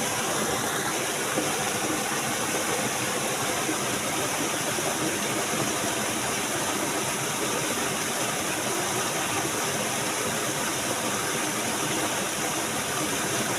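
Steady rush of flowing stream water, an even noise that holds without change.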